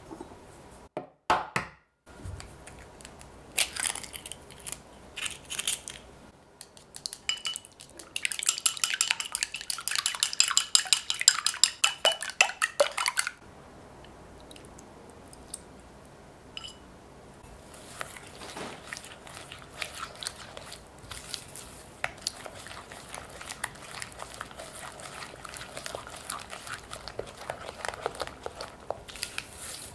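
A silicone spatula mixing thick muffin batter of creamed butter, sugar and egg in a glass bowl, scraping and squelching against the glass. A few sharp knocks come about a second in, and a stretch of fast clicking and scraping about eight seconds in lasts some five seconds before the softer mixing carries on.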